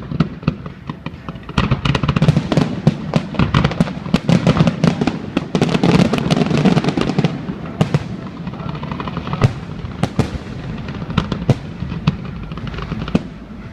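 Fireworks display bursting in rapid crackling volleys, densest through the first half, then thinning to scattered separate bangs.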